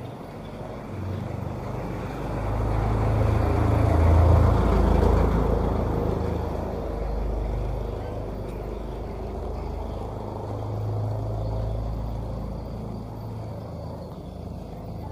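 A motor vehicle passing close by. Its engine and tyre noise build to a peak about four seconds in and then fade, with a second, smaller swell later on.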